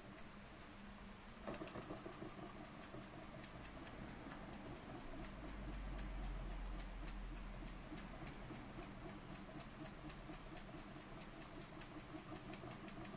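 Burnac Vulcan model steam engine running under steam, a steady rapid ticking chuff of about five beats a second that picks up about a second and a half in.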